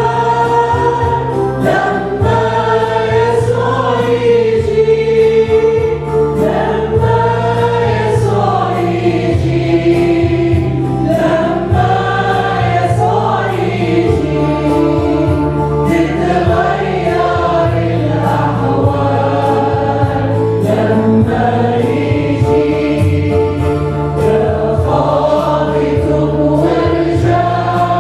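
Arabic church hymn sung by a group of mostly women singers into microphones, with live band accompaniment: steady low keyboard notes under the voices and a regular drum beat.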